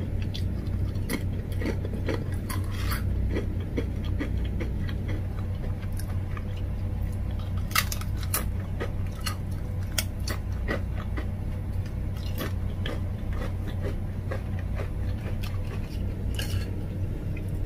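Close-up crunching and chewing of thin, crisp black spicy chips, with irregular sharp crunches from bites throughout, over a steady low hum.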